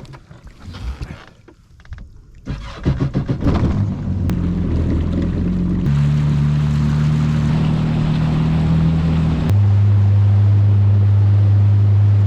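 A Yamaha FX Cruiser HO WaveRunner's engine starts about two and a half seconds in, with rapid pulsing as it catches and runs up. From about six seconds, steady sustained tones take over, shifting to new pitches in sudden steps like background music chords.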